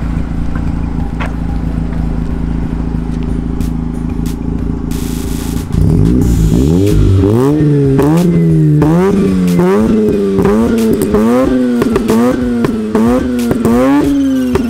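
Mazda RX-8's rotary engine idling steadily, then, about six seconds in, revved hard again and again: short, quick blips of the throttle, each one rising and falling back, loud.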